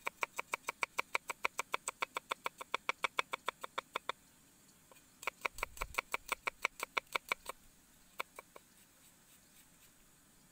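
Cleaver chopping garlic cloves on a round wooden chopping block: quick, even knocks about seven a second, a pause of about a second, then a second run and a few last strikes.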